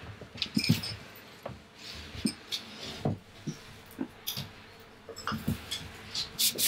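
Irregular light taps, clicks and soft knocks with faint rustling, the sound of papers and small objects being handled on a studio table.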